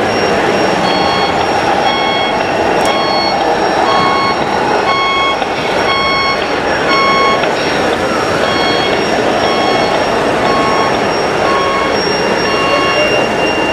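Reversing alarm beeping steadily, about once a second, as on a scale RC truck's sound module while it backs up, over a steady engine-like hum.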